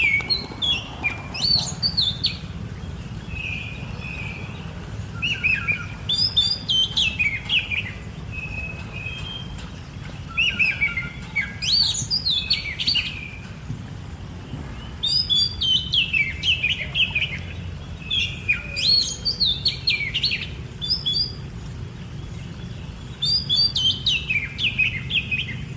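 Songbirds singing: about six bursts of quick chirping and warbling notes a few seconds apart, with short steady whistled notes between them, over a low steady rumble.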